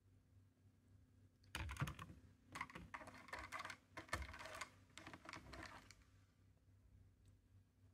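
Hard plastic parts of an Earth Chemical battery-powered mosquito repeller and its mesh refill cartridge being handled: light clicks and rattles that start about a second and a half in and go on for about four seconds.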